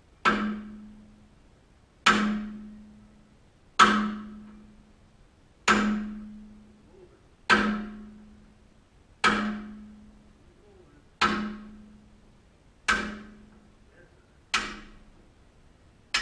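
Hammer blows on steel at a slow, steady pace, about one every two seconds, each ringing briefly with a low metallic tone: the rusted, seized pin in a tow truck's wheel-lift being driven out.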